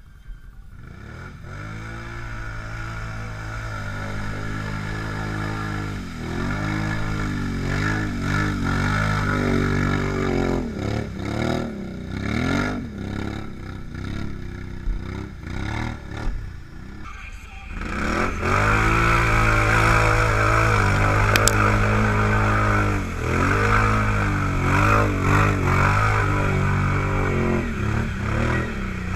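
ATV engine revving up and down over and over as the quad works through deep mud and water. About two-thirds of the way in it gets louder and is held at higher revs, with mud and water churning under the tyres.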